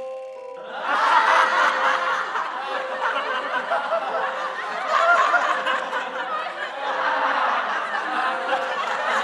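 A group of teenagers laughing together, starting about a second in and carrying on throughout, with a steady tone held underneath.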